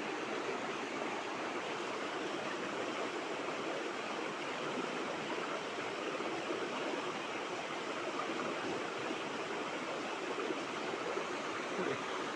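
River water rushing steadily, a constant even wash of noise.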